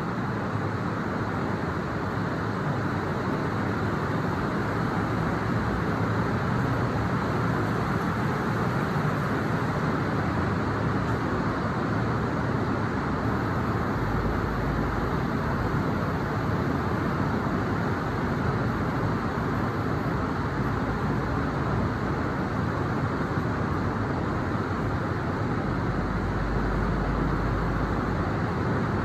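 Steady heavy rainfall, an even hiss with no breaks, with a low rumble swelling underneath twice, about halfway and near the end.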